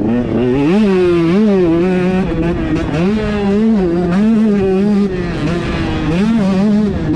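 125cc-class motocross bike's engine racing under hard throttle, its note climbing and dropping every second or so as the rider works the throttle and gears.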